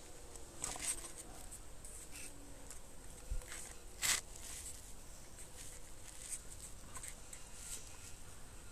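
Faint handling sounds in a workshop: scattered light clicks and knocks as tools and objects are moved, with the sharpest knock about four seconds in.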